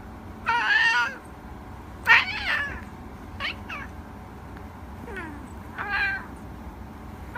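A cat meowing about four times, each meow short and a second or two apart.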